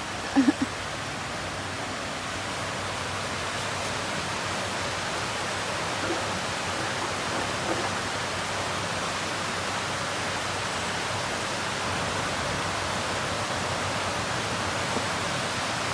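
Steady rush of a small burn's running water, with a brief short sound about half a second in.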